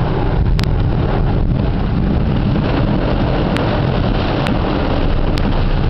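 Heavy thunderstorm rain drumming steadily on a car's roof and windows, heard from inside the car, with a few sharp ticks at irregular intervals.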